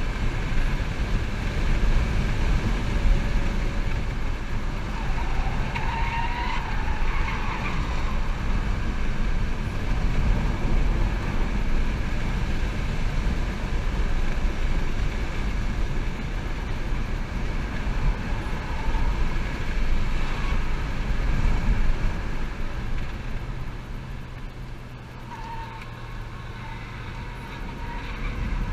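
Cabin noise inside a 2011 Chevy Volt at speed on a track: steady road, tyre and wind noise. The noise drops about 23 seconds in as the car slows for a corner, leaving a quieter low hum.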